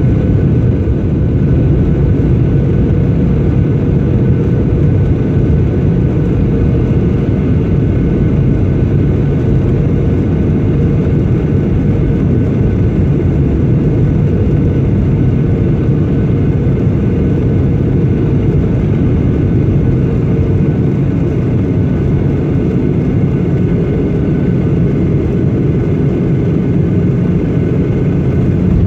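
Jet airliner cabin noise on final approach: a steady, loud rush of engine and airflow heard from inside the cabin beside the wing-mounted engine, with a faint steady whine above it.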